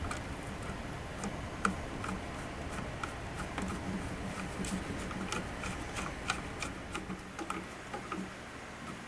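Small irregular clicks and taps of hard plastic stock parts being fitted and handled on an AK rifle, busiest in the middle, over a steady low hum.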